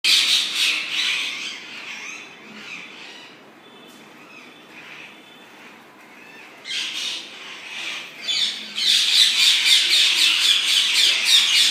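A flock of parrots squawking. Loud calls at first ease off to scattered quieter calls, then from about seven seconds in build into a dense chorus of many overlapping squawks.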